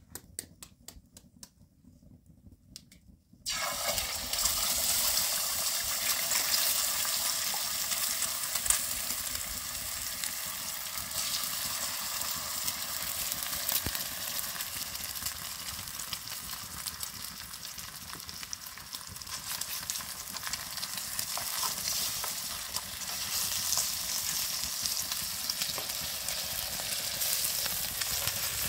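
A few light clicks as an egg is cracked, then about three and a half seconds in eggs drop into a hot, oiled pan over a wood fire and start sizzling loudly, frying steadily from then on.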